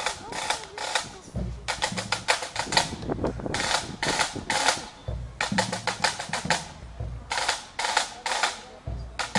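Pipe band drum corps playing: snare drums rattle out rolls and quick patterns in short bursts, and bass drum beats join about a second and a half in.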